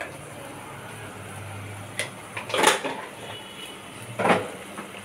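Chilli powder and green chillies frying in hot oil in a stainless-steel karahi, over a steady low hum. The oil gives a few sharp spits, the loudest about two and a half and four seconds in.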